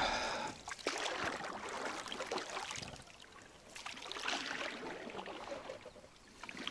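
Water splashing and lapping around a small boat on a river. The splashing swells twice, near the start and again about four seconds in, with a few light knocks.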